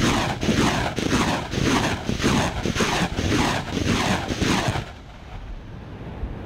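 BM-21 Grad 122 mm multiple rocket launcher ripple-firing its salvo: rockets launch one after another, about two a second, each a rushing blast that falls in pitch as it leaves the tube. The salvo stops about five seconds in, leaving a low fading rumble.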